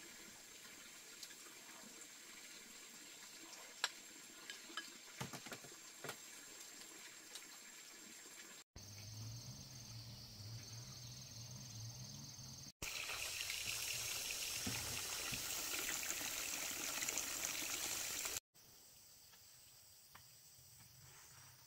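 Water trickling and splashing, changing abruptly several times, with a low hum for a few seconds near the middle and a louder rush of water in the latter half.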